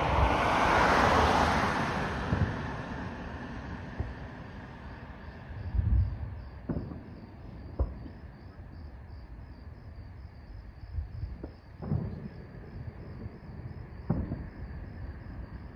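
Distant aerial fireworks bursting: about half a dozen separate booms spread over the later part, with crickets chirping in a fast, even pulse beneath them. A rushing noise swells and fades over the first two seconds.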